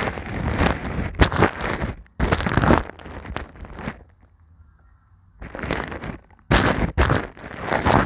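A brush scratching over a foam microphone cover right at the mic, in loud scratchy strokes of a second or so. The strokes stop for about a second and a half in the middle, then start again.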